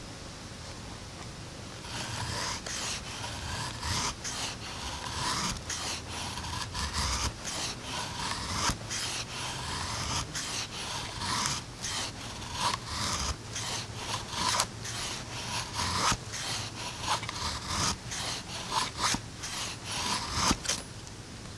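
A large knife blade scraping down a wooden stick in a run of short, repeated strokes, shaving off thin curls to make a feather stick. The strokes begin about two seconds in and stop shortly before the end.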